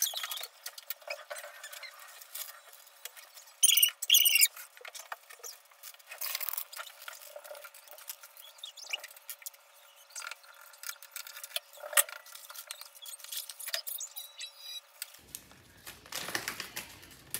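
Small objects being handled on a desk: scattered light clicks, taps and rustles, with a short, loud squeaky burst about four seconds in. The sound is thin and tinny throughout.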